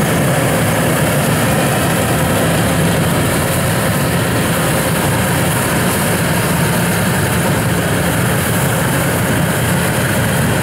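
Yanmar rice combine harvester running while cutting rice, its engine and harvesting machinery making a loud, steady, unbroken drone.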